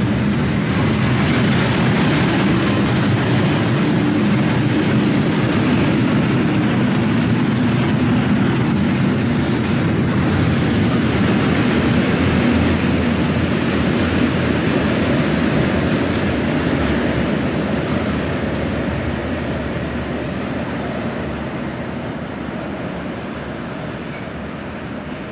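Freight train of tank wagons rolling past on the rails, a steady, deep running noise of wheels and wagons. From about seventeen seconds in it fades steadily as the end of the train moves away.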